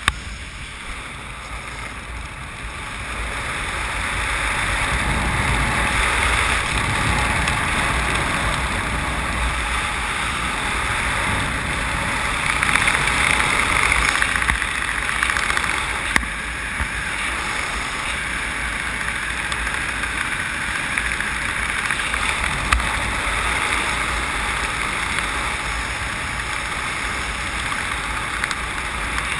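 Wind rushing over the camera's microphone during a skydive descent, a steady windy hiss with a low rumble that gets louder about three seconds in.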